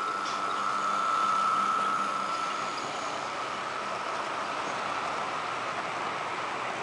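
HO scale model freight train running past on the layout track. A steady high whine is strongest in the first two and a half seconds and then fades, over the continuous running noise of the cars' wheels on the rails.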